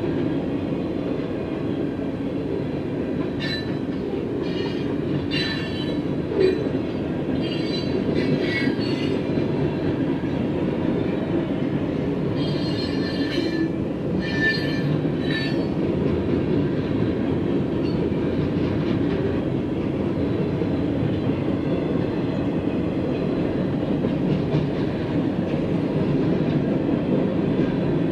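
Freight cars rolling past close by: a steady rumble of steel wheels on rail, with bursts of high-pitched wheel squeal a few seconds in and again about halfway through.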